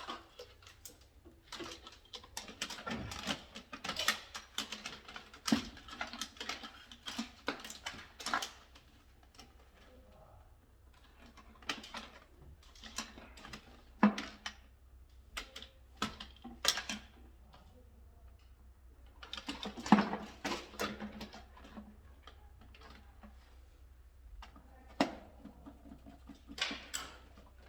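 Irregular clicks, taps and scratchy rustling of hands working on electrical wiring: wires and small tools being handled and terminals fastened, in clusters with short pauses between.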